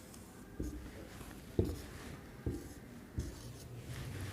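Hand-drawing a geometry diagram: faint writing strokes with four soft taps, about one a second.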